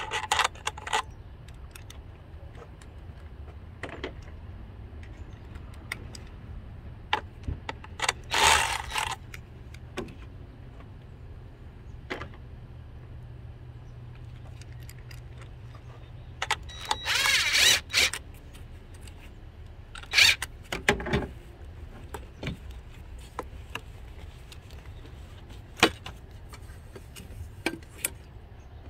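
Clicks, clinks and scraping of hand tools and metal parts as an aluminium turbo charge pipe is worked loose and pulled off, with three louder spells of rattling and scraping about 8, 17 and 21 seconds in, over a steady low hum.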